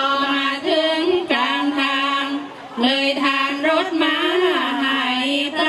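A woman's voice singing sarabhanya, the Thai-Isan Buddhist chanted verse, unaccompanied. She draws out long notes with wavering ornaments, in two phrases with a short break for breath about two and a half seconds in.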